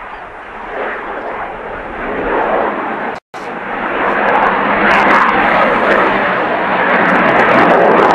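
Avro Vulcan's four Rolls-Royce Olympus turbojets heard from the ground in a flypast: a loud rushing jet noise that builds in strength, with a momentary dropout about a third of the way in.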